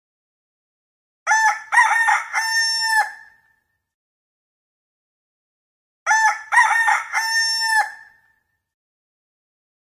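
Ayam kampung (Indonesian village chicken) rooster crowing twice, about five seconds apart. Each crow lasts about two seconds: a few short broken notes, then a long held final note.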